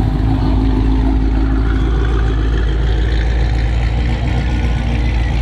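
A car engine running steadily, its sound heavy in the low end.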